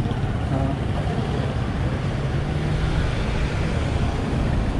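Steady street traffic noise, with a motor vehicle's engine humming low close by.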